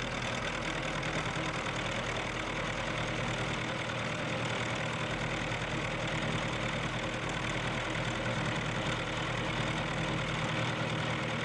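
Milling machine running steadily while a corner-rounding end mill cuts along the edge of a steel block: a steady motor hum under an even cutting noise.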